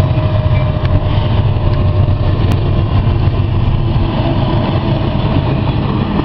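Diesel freight locomotives passing close by, then freight cars: a loud, steady heavy rumble of engines and wheels on the rails, with the last of the horn dying away at the start.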